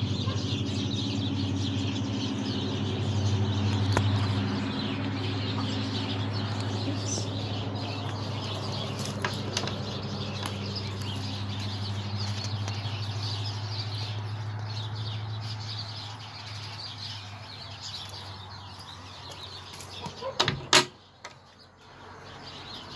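Birds chirping over a steady low mechanical hum that fades away after about sixteen seconds. Near the end, a quick cluster of sharp clicks and knocks as the chicken coop's door latch is worked and the door opened.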